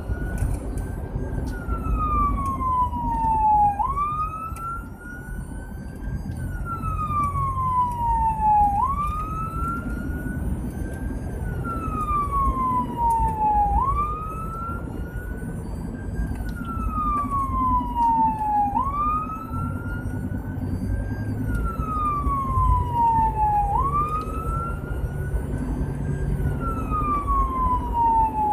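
Fire department response vehicle's siren on a slow wail, heard from inside the cab: the pitch jumps up quickly and then sinks slowly, repeating about every five seconds, over the steady rumble of the engine and tyres.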